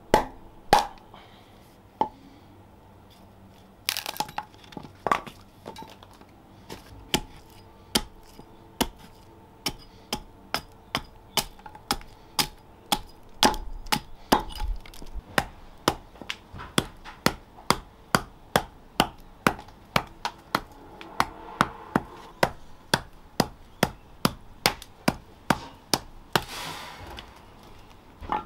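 Sharp wooden knocks of a wooden club striking a splitting blade driven into green plum wood as billets are split, scattered at first and then settling into a steady run of about two a second. Longer crackling bursts sound about four seconds in and again near the end.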